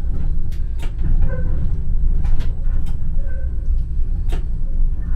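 Vario low-floor tram running, heard from inside the driver's cab: a steady low rumble with several sharp clicks as the wheels cross the points.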